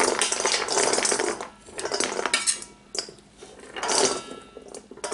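A knife scraping diced carrots and potato cubes off a cutting board into a large stainless steel bowl, the pieces clattering into the metal. It comes in several bursts with short lulls between.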